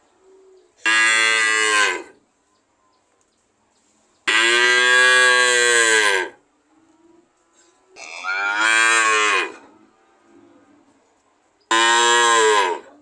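Cow mooing four times, each moo a second or two long with short pauses between; the second moo is the longest.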